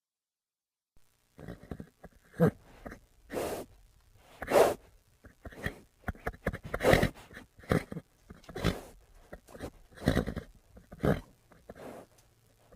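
A horse making a series of short snorts and grunts, roughly one a second, starting after about a second of silence.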